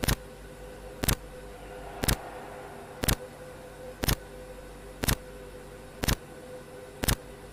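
Electronic intro sound effect for a glitch-style title animation: a sharp tick about once a second over a steady hum and hiss.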